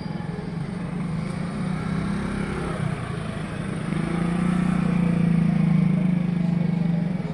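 Small motorcycle engine running at low speed. It grows louder as the bike passes close by, a bit past halfway, then eases off slightly near the end.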